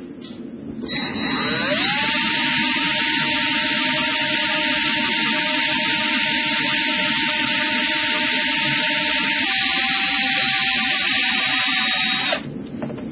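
Electric drill spinning a small polishing brush against a plastic reel part with toothpaste. It spins up with a rising whine about a second in, runs steadily, drops a little in pitch later on, and stops shortly before the end.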